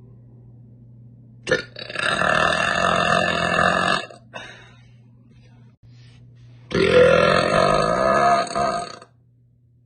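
A woman letting out two long, bassy burps, each about two seconds, a couple of seconds apart.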